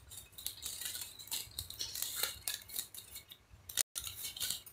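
Fingers scraping turmeric powder out of a small steel bowl and scattering it over cut raw mango pieces in a steel plate: a run of dry scrapes and light metal clicks. The sound cuts out for a moment near the end.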